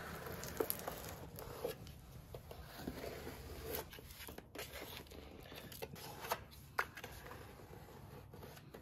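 Faint scraping and small scattered clicks of a small blade working Rockite grout into the joint around a shower base, with light crinkling of plastic tape.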